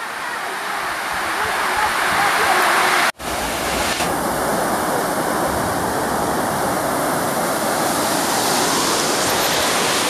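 Waterfall pouring into its pool: a steady rushing noise that cuts out for an instant about three seconds in.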